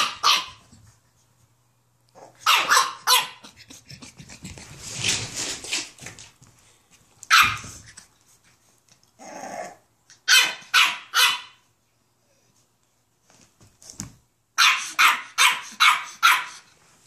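Eight-week-old French bulldog puppy yapping in short, sharp barks, scolding a much larger adult dog. The barks come in bursts, with a rougher growly stretch about a third of the way in, and a quick run of five barks near the end.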